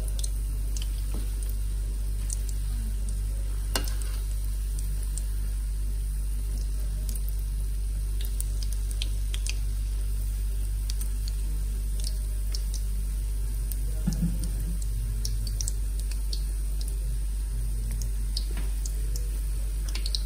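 Potato cheese balls shallow-frying in hot oil on a low flame: a steady sizzle with scattered small crackles over a low hum, and a couple of light knocks about four and fourteen seconds in.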